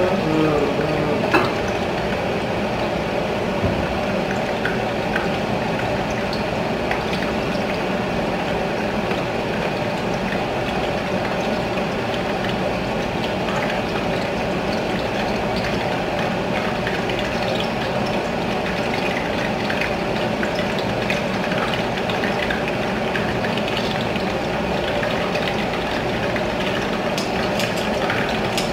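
Steady rushing hiss with a faint constant hum and scattered small crackles, from a pan of cooking oil heating on an induction hob with two metal kembang goyang rosette irons resting in it, the oil not yet hot enough to fry.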